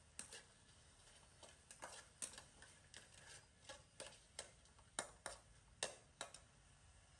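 Metal spatula clinking against a stainless steel wok while rice is stirred: a string of irregularly spaced sharp clinks, about a dozen, the loudest about five and six seconds in.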